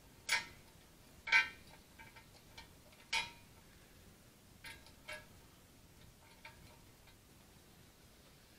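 Small metal clicks and light ticks as a nut and washer are fitted onto a toggle switch's threaded stem in a painted sheet-metal dash housing. There are about four sharp clicks in the first few seconds, the loudest about a second and a half in, then a few fainter taps.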